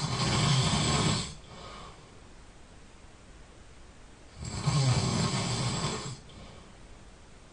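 A sleeping person snoring loudly. One snore is already sounding at the start and ends just over a second in. A second snore of about a second and a half comes roughly five seconds after the first began. Each is a low rumble with a hiss over it, followed by a softer breath.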